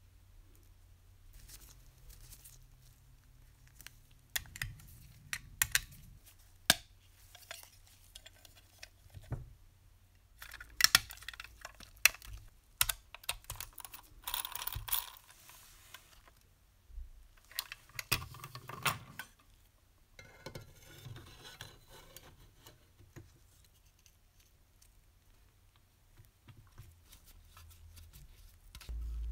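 Small metal parts of a model locomotive clicking, tapping and lightly scraping as gloved hands handle and fit them during reassembly, in scattered bursts with a quieter stretch in the second half.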